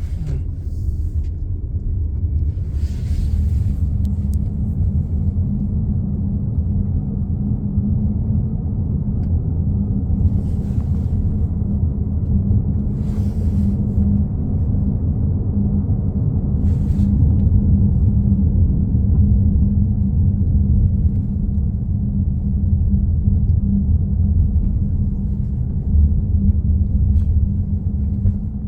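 A loud, steady low hum and rumble from the back of a 2015 Honda CR-V Touring. A few brief bursts of hiss come through it.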